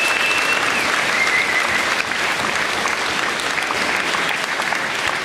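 Large audience applauding steadily, many hands clapping at once, with a whistle gliding over the clapping in the first second or so.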